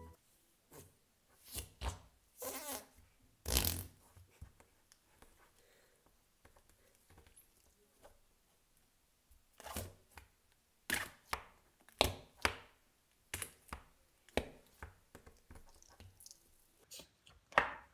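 Noisy slime being pushed and squeezed into its plastic cup by fingers, trapped air squelching out in short fart-like pops. The pops come in clusters, the loudest a little over three seconds in, with a quiet stretch in the middle.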